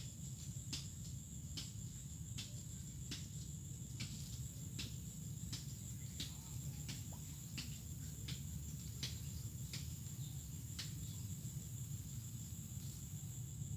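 Insects calling in a steady high-pitched drone, with sharp clicks repeating roughly once a second and a low steady rumble underneath.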